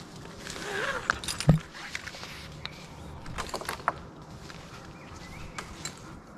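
Metal climbing hardware clinking and jangling in short, scattered clicks as a tree climber works his rope system, with one heavier knock about one and a half seconds in.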